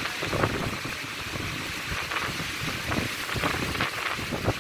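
Strong wind buffeting the phone's microphone in uneven gusts, a rough rumbling rush.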